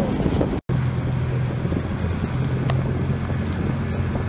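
Boat motor running at a steady low speed, a continuous low hum, with wind buffeting the microphone. The sound cuts out for an instant about half a second in.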